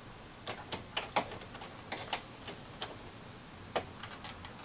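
Irregular small clicks and ticks of needle-nose pliers working at the plastic fork clip of the 2003 VW Passat's hood-release cable, about a dozen scattered sharp clicks as the clip is pried and spread.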